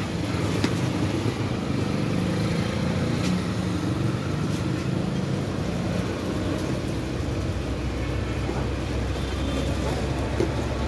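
Street traffic noise, with a low motor-vehicle rumble that grows louder about seven and a half seconds in, and a few light clicks.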